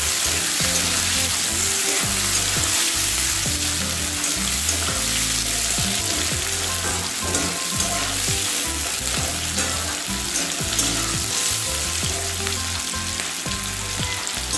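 Sliced onions sizzling steadily in hot mustard oil in a metal kadhai, stirred and scraped with a metal spatula, the onions frying towards light brown.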